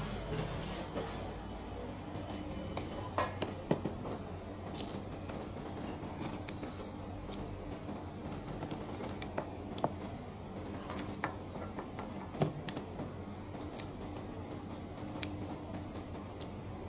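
Scattered light clicks, taps and scrapes of hand work with kitchen utensils over a steady low hum.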